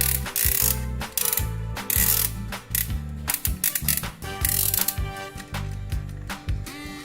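Mechanical ratcheting and gear clicking, heard over background music.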